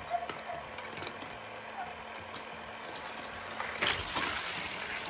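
Battery-powered toy race track's motor whirring steadily, with small plastic clicks; about four seconds in, a louder rattling clatter of plastic toy cars and track parts being handled comes in.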